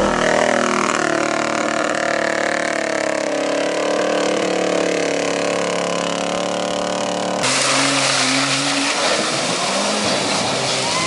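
A GMC pickup's engine revving hard as it spins its tyres through deep mud, the pitch rising and falling. About two-thirds of the way in it changes abruptly to a Jeep's engine revving as it churns through mud, louder and noisier with the spray.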